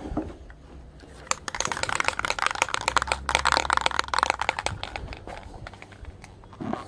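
Rummaging by hand: a rapid, dense clatter and rustle of small things being handled and shifted, lasting about three and a half seconds from just over a second in.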